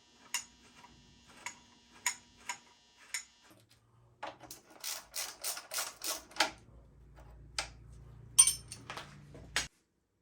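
Hand tools and metal motorcycle parts clinking and clattering during disassembly: a string of sharp metallic clicks, a quick run of clicks in the middle, and a louder clack about eight seconds in, cutting off suddenly near the end.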